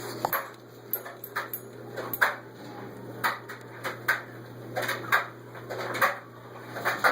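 Irregular short scratches and taps, about a dozen of them, from a Meyer's parrot busy inside its nest box, over a steady low hum.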